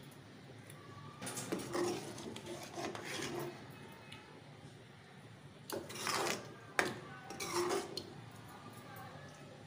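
A metal spoon scraping and stirring through thick meat curry in a metal pot, in two spells, with one sharp clink of the spoon against the pot about seven seconds in.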